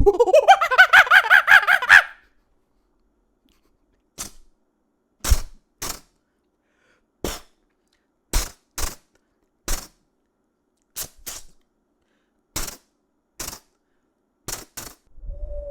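A man making sound effects with his mouth: a rapidly warbling vocal sound that rises in pitch, then after a pause a series of about fourteen sharp, separate mouth pops at irregular intervals.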